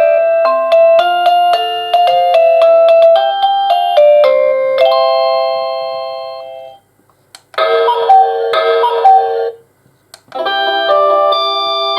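AVANTEK D-3B wireless doorbell receiver playing its electronic chime tunes one after another. A multi-note melody fades out about seven seconds in, a short quick-noted tune of about two seconds follows, and another melody starts near the end.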